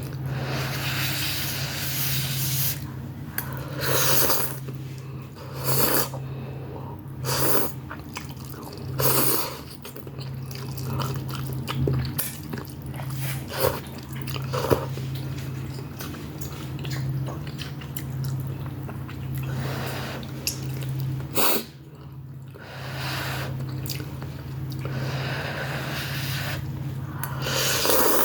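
Close-up eating sounds from a person eating Shanghai noodles and beef: repeated chewing and wet mouth noises with breaths through the nose. A steady low hum runs underneath.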